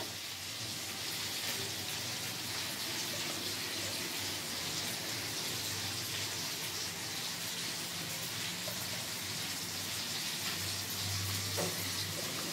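Ground masala frying in oil in a kadai on a gas stove: a steady sizzle.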